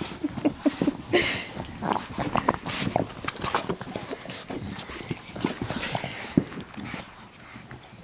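Boston terrier puppies making many short, irregular squeaks and little grunts, with scuffling as they play.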